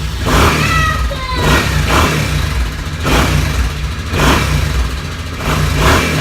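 Motorcycle engine running just after being started, revved in surges about once a second.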